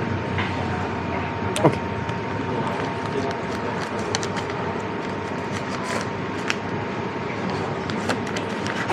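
Steady fast-food restaurant background noise with a faint steady tone running through it. Scattered light clicks and rustles come as a wallet is opened and banknotes are pulled out at the counter, with one sharper click about a second and a half in.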